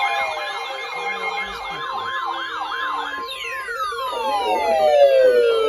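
Electronic siren warbling rapidly, about three rises and falls a second, then sliding down in one long falling glide as it winds down.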